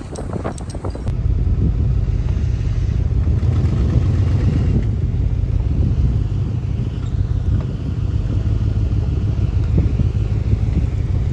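A few short clicks, then an engine comes in loudly about a second in and runs steadily at a low rumble, as a vehicle pulls an old buried wire fence out of the ground.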